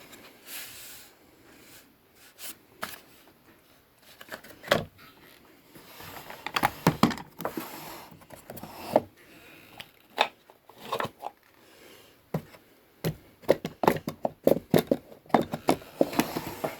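Hard plastic retail packaging being handled, with crinkling and rustling and many irregular sharp clicks and taps. These come sparsely at first and grow thick from about a third of the way in.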